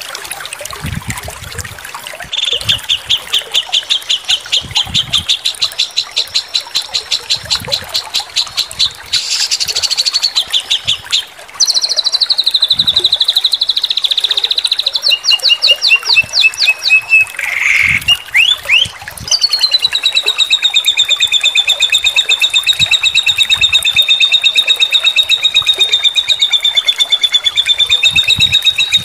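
A small songbird singing a composed bird-training (masteran) song: a run of high, sharp notes about four a second, then faster trills and a falling run with short repeated phrases, and from about two-thirds in one long, rapid trill.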